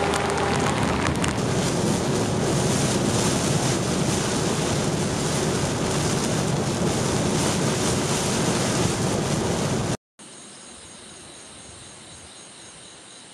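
Typhoon wind and water noise, a loud steady rush. About ten seconds in it cuts to a much quieter scene with a faint, regularly pulsing insect chirp.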